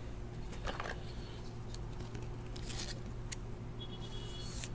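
Faint rustling and a few light ticks of a trading card being handled and slid into a plastic holder, over a steady low hum.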